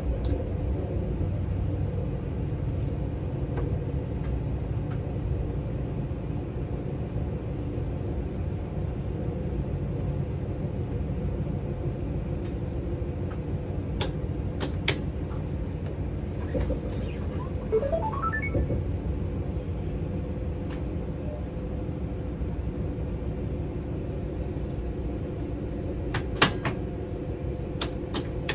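An ICE 4 high-speed train running, heard from inside the driver's cab: a steady rumble with a constant hum, and a few sharp clicks from the wheels over the track. About two-thirds of the way through there is a brief rising series of short tones.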